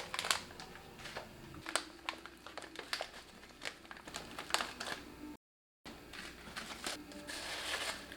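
Kitchen handling noises: scattered light clicks, taps and crinkling as food and packaging are handled, then a short hiss near the end.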